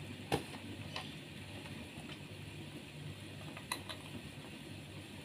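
Soup boiling in an aluminium pot on a stove, a low steady sound, with a few light sharp clicks. One click comes just after the start, one about a second in, and two come close together past the middle.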